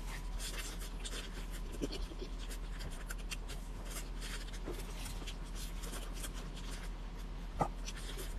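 Chewing of crispy deep-fried chicken: scattered small crackles and mouth clicks over a steady low hum, with one louder smack or click about seven and a half seconds in.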